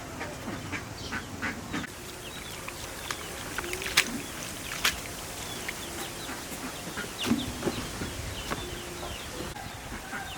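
Farmyard birds calling: short low calls like ducks or chickens among many small chirps. A few sharp clicks or knocks stand out, the loudest about four seconds in.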